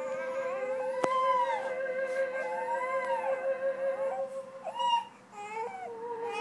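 Old record playing on an antique upright cabinet phonograph: a melody of long, sliding notes over a held lower note, with a sharp click about a second in.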